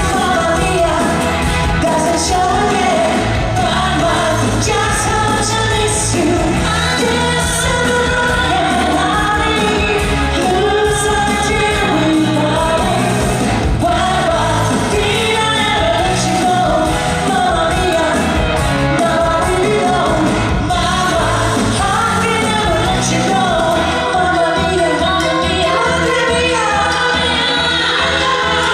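Live pop-style musical number: singing over a band accompaniment with a steady bass beat. The bass drops away near the end.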